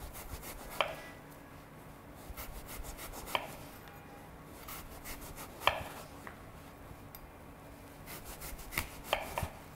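Kitchen knife slicing an apple into thin planks, each cut ending in a sharp knock of the blade on a wooden cutting board. The knocks come a few seconds apart, then three in quick succession near the end.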